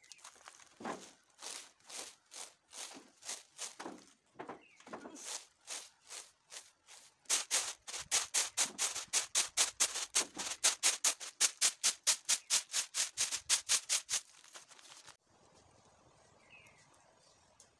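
Dried, pounded coffee beans rattling and swishing in a woven bamboo winnowing tray as it is tossed to clear away the loosened husks. Slow strokes about twice a second at first, then quick, louder strokes about four a second from about seven seconds in, stopping about fifteen seconds in, after which there is only faint rustling.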